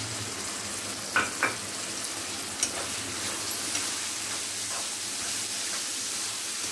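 Mung dal, green peas and onion sizzling in hot oil in a metal kadhai while a metal spoon stirs them, with a steady frying hiss. A few sharp scrapes of the spoon on the pan stand out about a second in and again near three seconds.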